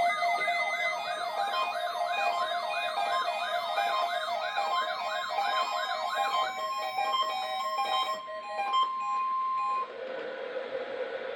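Electronic siren-like warble, rising and falling nearly three times a second, over steady synthesized tones and short stepped notes. The warble stops about six and a half seconds in, and the notes end about three seconds later, leaving a steady hiss.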